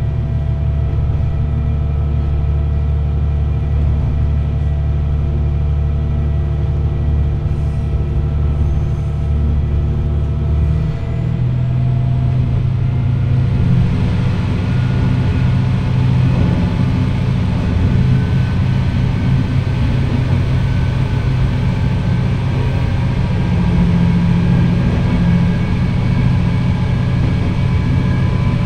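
Diesel railcar engine running under way, heard from the front of the train. About eleven seconds in the engine note changes to a different pitch, and a couple of seconds later the wheel-and-rail running noise grows louder.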